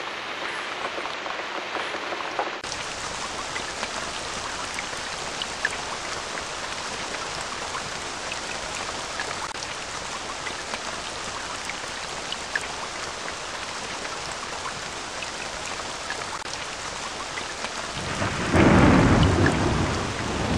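Steady rain falling, with scattered drop ticks. A low rumble of thunder swells up near the end.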